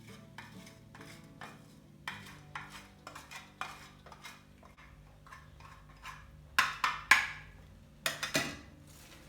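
Parmesan cheese being grated, a series of short rasping strokes that grow louder and come in two quick bunches near the end. Faint guitar background music runs underneath.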